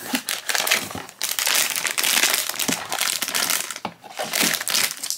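Pop Mart blind-box packaging crinkling and crackling as hands work it open, with brief pauses about a second in and near four seconds.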